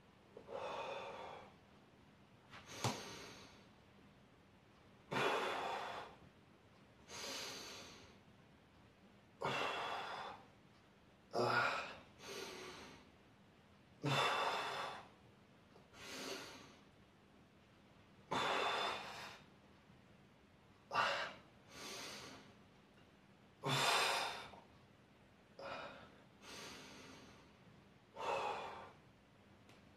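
A young man breathing hard through a set of dumbbell shoulder presses: short, forceful breaths in and out, one every second or two, each a brief rush of air.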